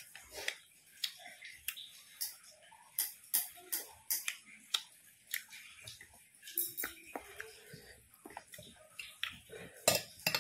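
Close-miked chewing and lip-smacking while eating grilled sea fish: irregular wet mouth clicks, about two a second.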